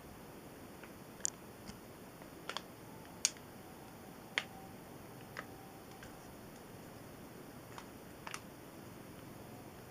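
Oil-filled heater ticking: about ten sharp, uneven clicks over a faint steady hiss, the sound of its metal fins expanding as they heat.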